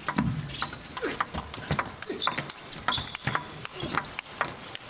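Table tennis rally: the ball clicks rapidly back and forth off bats and table, with short grunts from the players on their strokes.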